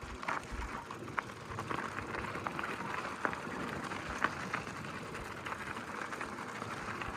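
Gravel bike tyres rolling over a dirt and gravel road: a steady crackling hiss with scattered sharp ticks of small stones.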